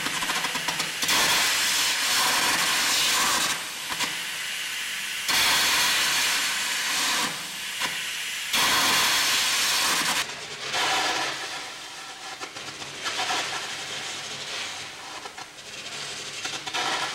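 Air carbon arc gouging on a steel turbine runner: the arc and its compressed-air jet hiss and crackle, blowing excess metal out of a weld joint. It comes in several stretches of about two seconds, lower and more uneven near the end.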